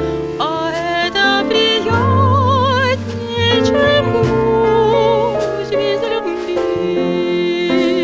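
A woman singing with a jazz quartet of piano, double bass and drums, her held notes wavering with vibrato.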